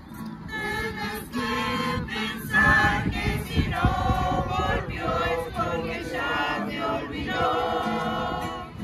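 Mixed community choir of men and women singing a song together, accompanied by an acoustic guitar. A new sung phrase starts just after the beginning, and the singing falls away at the very end.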